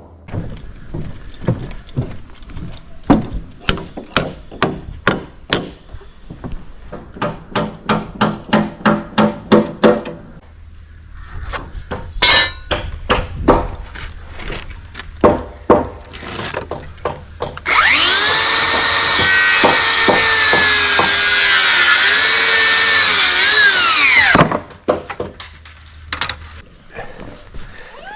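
Hammer driving nails into timber joists: a run of sharp blows, at times several a second. About two-thirds of the way in, a power tool runs loudly for about six seconds, its pitch dipping and recovering under load, then cuts off and scattered knocks follow.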